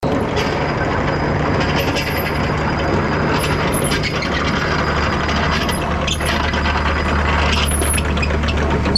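Kubota KX161-3 excavator running, its diesel engine holding a steady low drone under a continuous mechanical clatter with high squeaks that come and go.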